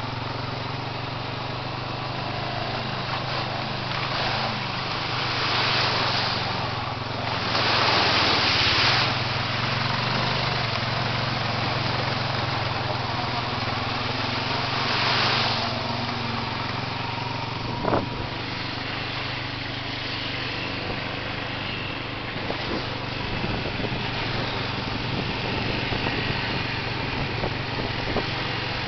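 ATV engine running steadily while the quad rides a rough, muddy trail, its pitch shifting a little with the throttle. Louder stretches of hissing noise come and go twice, and a single sharp knock sounds about two-thirds of the way through.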